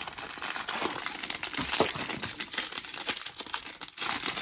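Blind-box packaging crinkling and rustling continuously as it is handled and opened by hand, with many small crackles.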